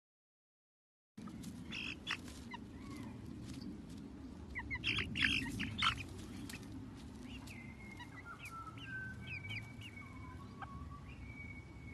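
Birds chirping, starting about a second in: short sharp chirps at first, then from the middle several longer, level whistled notes, over a low outdoor rumble.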